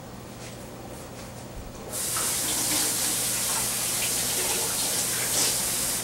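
Kitchen tap running in a steady stream for about four seconds, turned on about two seconds in and shut off sharply.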